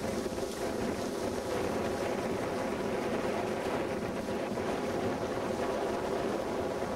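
Wind buffeting a camcorder microphone: a steady rushing noise with a fluttering low rumble.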